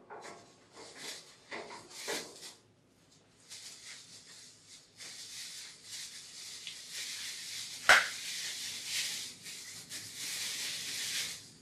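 Clear plastic bag crinkling and rustling in the hands as a power cord's plug is unwrapped, after a few short scratchy rustles. One sharp click stands out about two-thirds of the way through.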